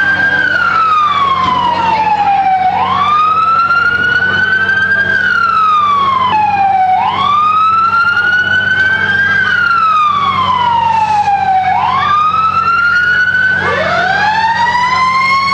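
Fire truck siren wailing: the pitch climbs quickly, then falls slowly, repeating about every four and a half seconds over a steady engine rumble.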